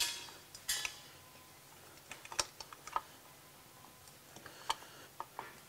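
Scattered light clicks and taps of a radiator brace plate being worked into place between a motorcycle's radiator and frame, with a brief scrape near the start.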